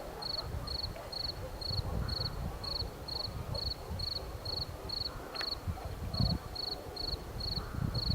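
An insect, likely a cricket, chirping in an even rhythm, about two to three high chirps a second, over a low, irregular rumble.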